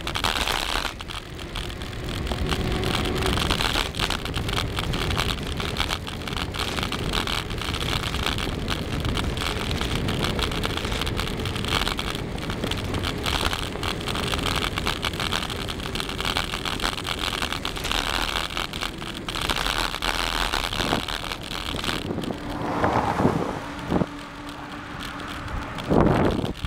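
Wind rushing over the microphone with the hum of bicycle tyres on asphalt while riding, with a few louder bumps near the end.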